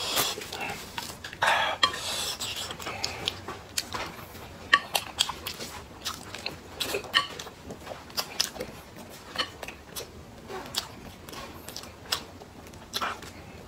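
Close-up eating sounds: a person chewing, with irregular sharp clicks and taps of chopsticks against a ceramic plate.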